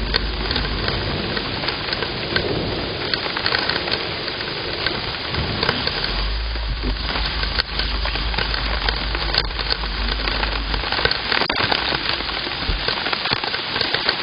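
Heavy rain pouring down steadily, a dense patter with no letup, with a low rumble underneath for several seconds in the middle.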